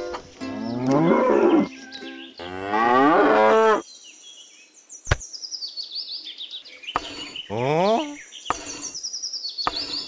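Cow mooing sound effects: two long moos that fall in pitch in the first four seconds. Then high bird chirps repeat, with a single click and a short rising call in between.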